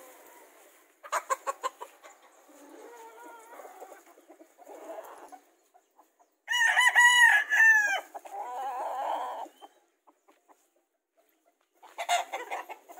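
A gamefowl rooster crowing once, loud, a little past halfway through. Shorter clucking calls come in the first few seconds.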